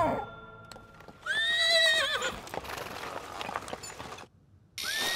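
Horse whinnying, a rising, wavering call lasting about a second. Faint hoof clip-clops follow, and a second whinny starts near the end.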